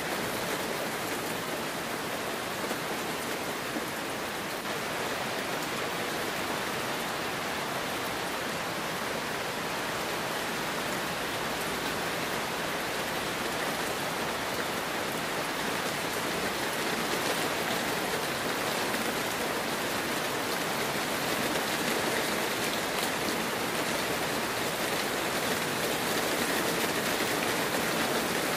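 Heavy rain falling steadily, an even hiss with no thunder or separate drops standing out, growing a little louder in the second half.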